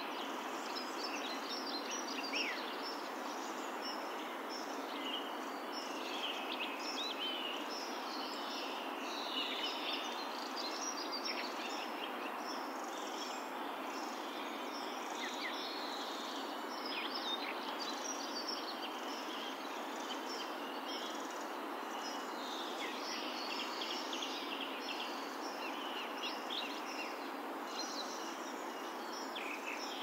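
Outdoor ambience: a steady background hiss with many birds chirping and twittering throughout.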